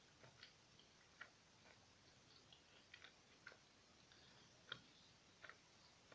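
Near silence, with a few faint, scattered soft clicks of quiet chewing on a chocolate sweet.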